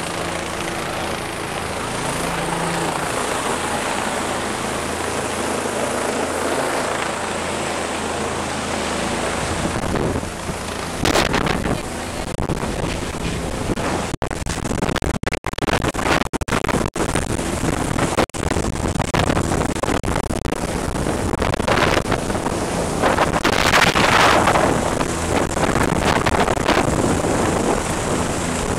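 Helicopter hovering overhead: a steady low thrum of rotor and engine under heavy wind noise on the microphone, with louder gusts at times.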